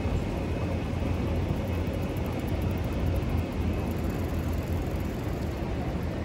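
Steady low rumble of city background noise, the hum of distant traffic, with no single event standing out.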